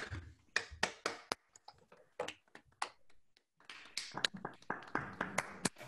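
Scattered sharp taps and clicks picked up through a video-call microphone. They come a few at a time at first and grow thicker over the last two seconds.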